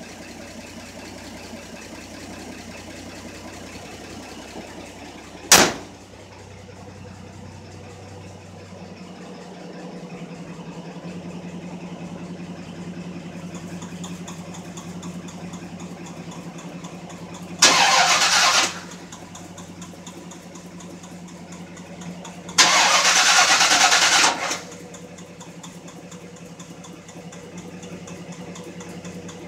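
1969 Chevrolet C10's 350 V8 being cold-started after months of sitting and then running at idle, a steady engine tone that settles in about nine seconds in. There is a single sharp bang early on, and two loud rushing bursts later, the first about a second long and the second about two seconds.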